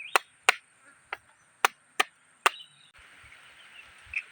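A run of sharp, chopping-like knocks, about two a second and irregular, ending after about two and a half seconds; the background changes abruptly about three seconds in.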